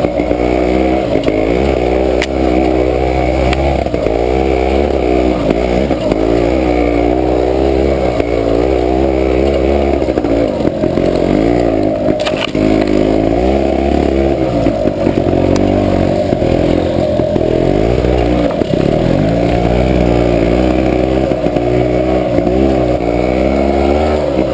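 Off-road motorcycle engine running under load, its revs rising and falling again and again as it is ridden over rough trail, with a couple of short knocks along the way.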